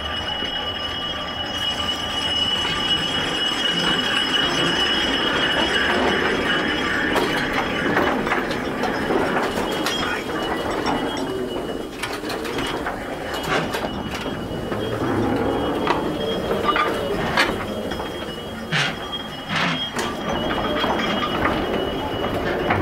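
Small battery-electric miniature railway locomotive running on its narrow track: a steady mechanical running noise with a thin steady whine. From about eight seconds in, scattered sharp clicks and clanks join in.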